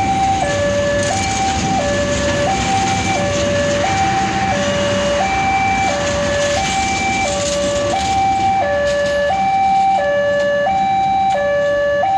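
Railway level-crossing warning alarm sounding a two-tone electronic signal, alternating high and low notes about every three-quarters of a second, over the rumble of passenger coaches rolling past.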